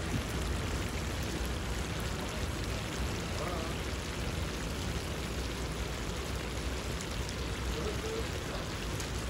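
Carrot-and-raisin zirvak for Uzbek pilaf simmering in oil and broth in a large kazan: a steady bubbling hiss with a low rumble underneath.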